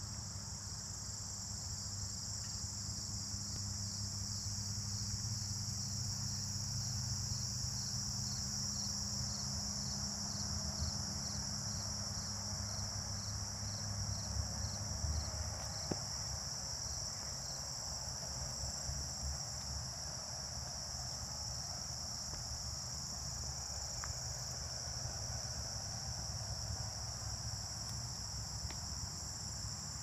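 Steady high-pitched chorus of crickets and other late-summer insects, with a separate regular chirp repeating about twice a second that stops about halfway through. A low rumble runs underneath.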